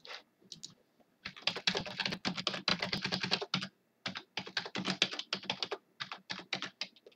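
Typing on a computer keyboard: a few scattered keystrokes, then a quick run of keystrokes broken by two short pauses.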